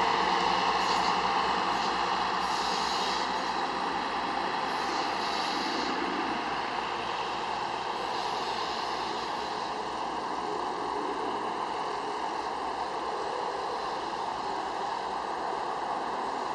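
Hi-rail weed-spraying truck running along the railway track, its engine and running noise getting quieter over the first several seconds as it moves away, then holding steady and faint.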